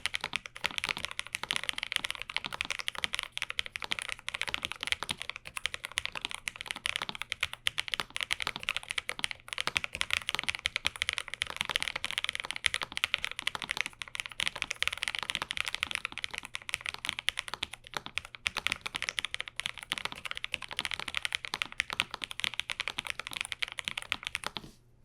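Lofree Flow Lite low-profile mechanical keyboard, with Kailh full-POM low-profile linear switches, typed on fast in a dense, continuous stream of keystrokes. The typing stops abruptly just before the end.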